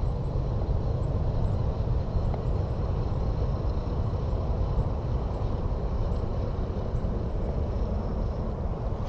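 Wind buffeting the camera's microphone outdoors: a steady, uneven low rumble.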